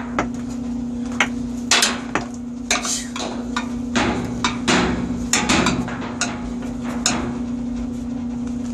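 Irregular knocks and taps of hard objects striking, about a dozen spread unevenly, over a steady low hum.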